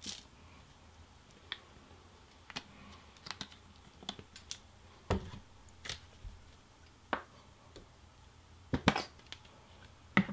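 Irregular light clicks and taps of sauce bottles being handled, squeezed and set down on a tabletop, with a louder pair of knocks near the end.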